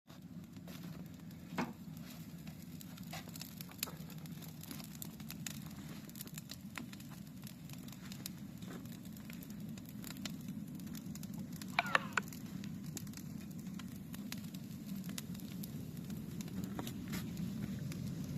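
Branches burning in a metal barrel: a steady low rush of flames with scattered sharp crackles and pops. About twelve seconds in, a brief louder, higher-pitched squeak stands out.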